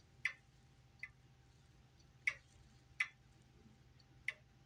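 Grandfather clock ticking, five sharp ticks with alternating short and long gaps: an uneven tick-tock, the timing a bit off.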